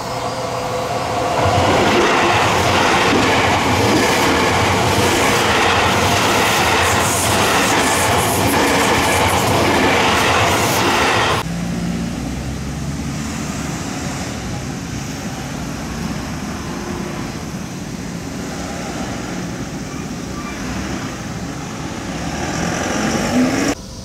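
Seibu 001 series Laview electric train passing close at speed: a loud, steady rush of wheels on rails for about ten seconds that cuts off abruptly. A quieter stretch of road noise from a car crossing the tracks follows.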